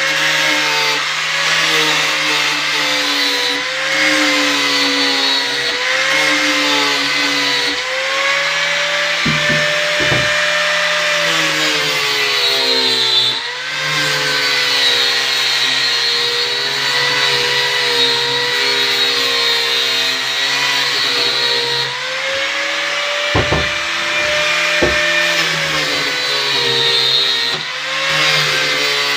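Electric angle grinder fitted with a hook-and-loop sanding pad, running steadily while it sands the routed edge of a wooden chair back. Its whine sags in pitch and picks back up several times as it is pressed into the wood. A couple of short knocks come near the middle and again near the end.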